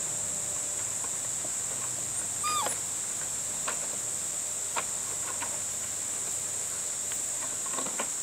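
A puppy gives one short whine about two and a half seconds in, while light clicks and knocks of plastic bottles sound now and then as a puppy noses among them in a plastic paddling pool. A steady high-pitched hum runs underneath.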